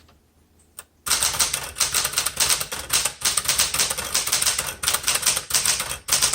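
1972 Smith Corona Classic 12 manual typewriter being typed on quickly: after a couple of faint clicks, a dense, rapid run of keystrokes starts about a second in, the type bars striking in quick succession.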